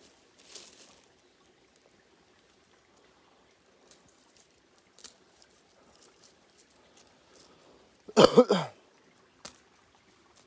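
Faint scattered rustles and clicks, then about eight seconds in a short, loud vocal sound from a man that falls in pitch.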